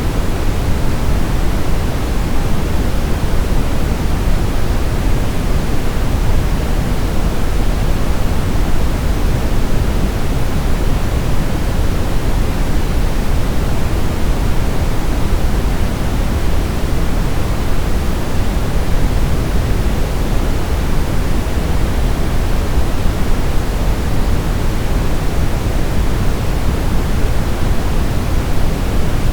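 Brown noise: a steady, even hiss weighted heavily toward the low end, a deep rumble with little treble, unchanging throughout.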